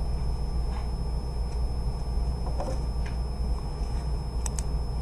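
Steady low room hum with a few faint clicks scattered through it.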